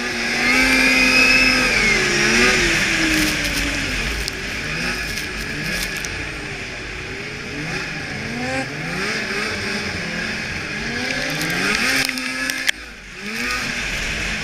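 2002 Blade Striker 600 race snowmobile engine at speed, its pitch rising and falling again and again as the throttle works through the turns, over a steady rush of wind. The engine note drops away briefly a little before the end, then picks up again.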